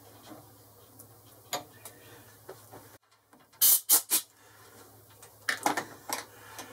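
Hand-cutting a thread with a 3 mm die on an aluminium stud, the lathe chuck turned by hand: sharp clicks and creaks, the loudest three close together about halfway through and more near the end. Under the early part is a faint low hum that cuts off abruptly about three seconds in.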